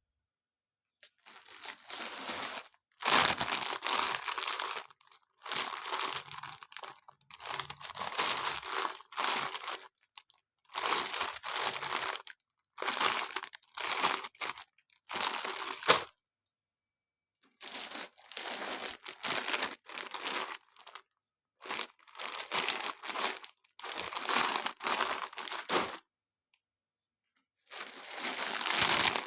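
Crinkling and tearing of plastic balloon packaging being handled and opened, in bursts of a second or two separated by short silent gaps.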